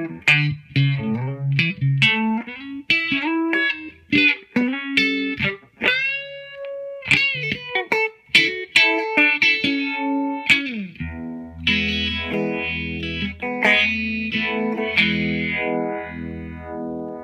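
Electric guitar (Stratocaster) played through a Uni-vibe-style pedal into a Fender '65 Deluxe Reverb reissue: picked single-note lines with a bent note near the middle, then ringing chords from about two-thirds in, their low end pulsing about once a second with the vibe's sweep.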